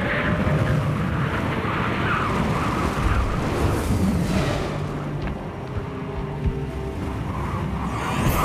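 Cinematic sound effects for an asteroid impact and its aftermath: a continuous heavy rumbling, roaring noise, with faint sustained music tones beneath.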